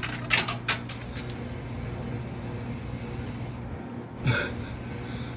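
A few short, crisp crackles of a chip bag and chips being eaten about half a second in, and another brief sound near the end, over a steady low mechanical hum.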